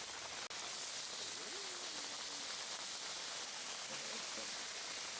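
A steady, even hiss that cuts out for an instant about half a second in.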